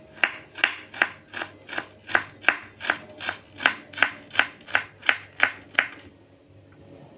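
Kitchen knife chopping ginger into small pieces on a wooden cutting board: steady knocks of the blade on the board, a little under three a second, stopping about six seconds in.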